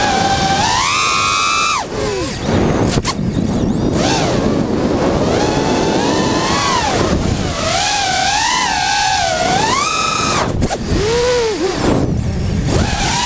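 Brushless motors of an FPV racing quadcopter (Schubkraft 2206 motors on DAL 5040 props) whining, the pitch sweeping up and down again and again with the throttle, over rushing wind noise on the onboard microphone. The whine drops away about two seconds in and again about ten seconds in as the throttle is cut, then climbs back.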